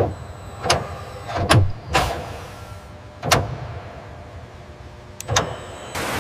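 A series of about six short mechanical clunks and whirs, each with a low thud, from the actuators driving the aircraft's tail control surfaces during a load test. Just before the end, a steady hiss cuts in suddenly.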